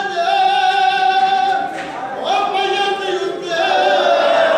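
Men's voices chanting a noha, the Shia mourning lament sung at matam, in long drawn-out notes, with a brief break about two seconds in.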